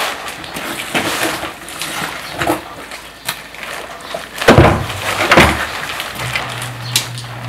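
Vinyl raincoat rustling and crinkling as the wearer moves close by, with two louder bumps of handling past the middle.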